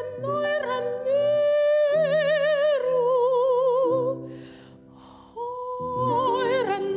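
Classical soprano voice singing long held notes with a wide, even vibrato over low sustained accompanying tones, with a short pause about four seconds in before the singing resumes.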